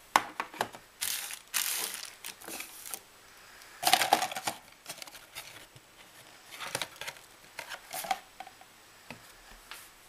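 Thin clear plastic packaging bags crinkling in irregular bursts as they are handled and opened, loudest about four seconds in.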